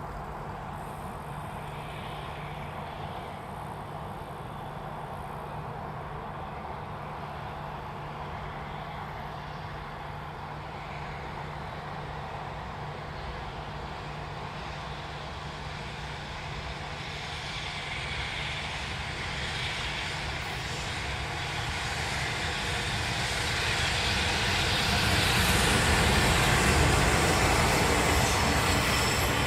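A train approaching: a steady low hum and rumble that grows louder over the second half as it draws near.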